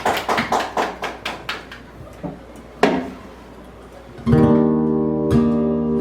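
Acoustic guitar: a run of sharp percussive taps that slow and fade, then a chord strummed a little past four seconds in that rings on, strummed again about a second later, as the song begins.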